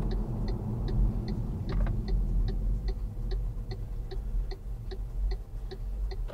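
Car turn indicator ticking steadily, about two and a half ticks a second, stopping near the end. Under it is the low rumble of the engine and road noise inside the car.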